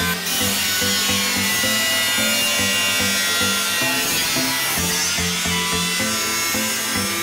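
Angle grinder with a thin cutting disc cutting through the steel top of a metal can: a steady high grinding hiss. Background music with a steady beat plays under it.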